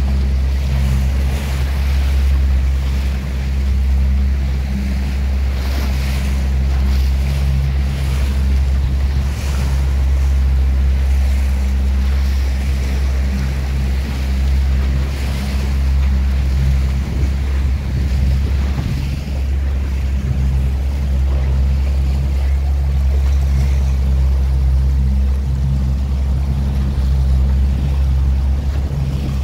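Motorboat engine running steadily underway, a low drone, with wind buffeting the microphone and water rushing and splashing past the hull.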